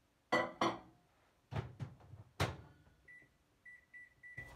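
Microwave oven being loaded and set: a few sharp knocks and clicks, then about five short high keypad beeps near the end as the cooking time is entered.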